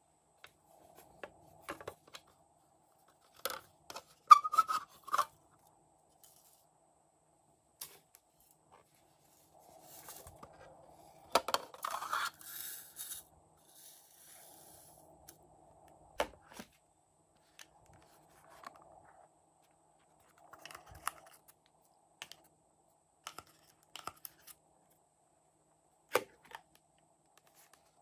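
Hands handling small hard-plastic toy-fridge cases and slime add-ins: scattered clicks, taps and knocks of plastic lids and parts, with a denser crinkly rustle about eleven to thirteen seconds in.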